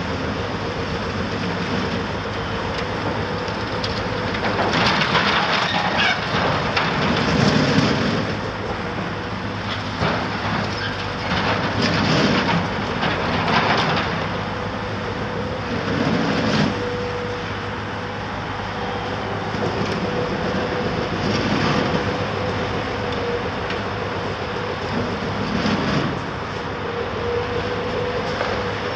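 Caterpillar 374F demolition excavator's diesel engine running steadily with a constant hum. Over it, broken building material crashes and scrapes in loud bursts every few seconds.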